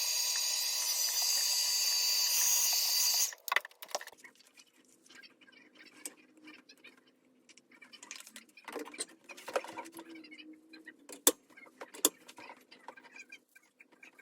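Hair dryer blowing with a steady high hiss, switched off about three seconds in; then quiet, with scattered light clicks and taps of handling.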